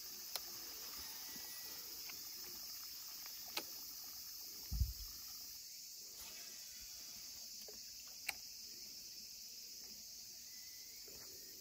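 Steady high-pitched chirring of insects, with a few faint sharp clicks and one low thump about five seconds in.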